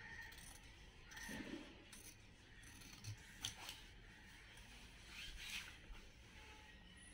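Large tailor's shears cutting through shirt fabric: a few faint separate snips, with a sharp click about halfway through, and the rustle of the cloth being moved.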